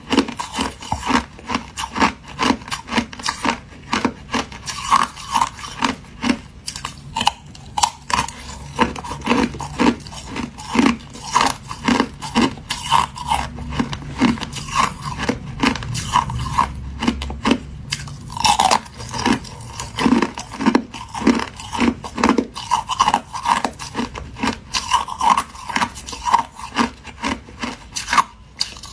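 Thin clear ice being bitten and crunched close to the microphone: a continuous run of sharp cracking crunches, several a second.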